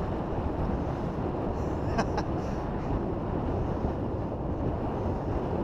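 Wind buffeting a GoPro Hero 3's microphone, a steady low rush of noise, with two short clicks about two seconds in.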